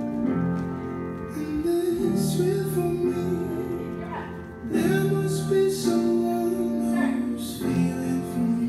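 Music: a song with a singing voice over instruments.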